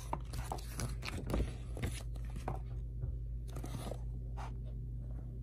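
Paper comic-book pages rustling and flapping as a Flip-O-Rama page is flipped back and forth by hand. A quick run of papery crackles dies down over the last second or so, over a low steady hum.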